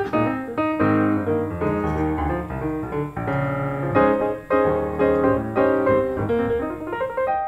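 Background piano music: a busy stream of quick notes.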